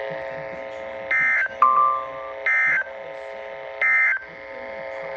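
Emergency Alert System end-of-message data tones on NOAA Weather Radio: three short, harsh digital bursts about a second and a half apart, marking the end of the flash flood warning broadcast. A steady droning chord runs underneath, with a brief beep just after the first burst.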